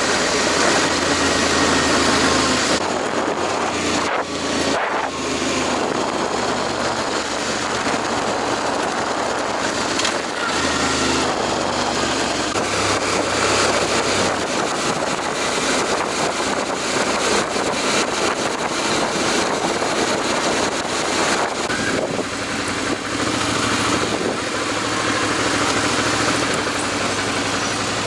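Heavy wind rushing over the action camera's microphone on a moving Suzuki V-Strom 650 motorcycle, with the bike's V-twin engine running underneath. The engine note shifts in steps as the speed changes.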